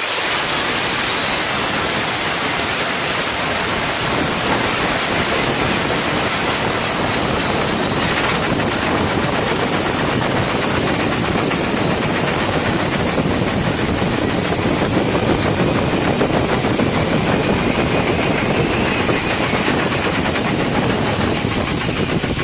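Compressed-air jet for dryer-vent cleaning, a spinning nozzle blasting high-pressure air: a loud, steady rush of air with a fine, rapid rattle.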